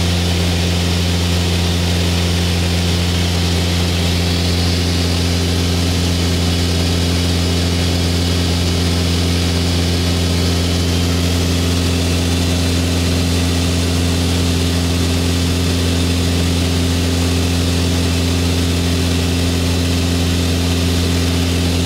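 Cockpit drone of a Mooney 201's four-cylinder engine and propeller at cruise power, 2600 RPM, heard inside the cabin: a loud, steady, unchanging hum.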